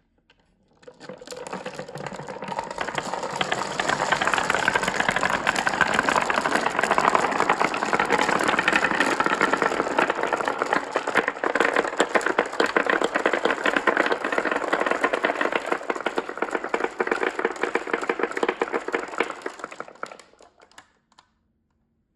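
Many marbles clattering as they roll down a marble run track: a dense rattle of small clicks and knocks that builds up about a second in, holds for most of the stretch and dies away near the end.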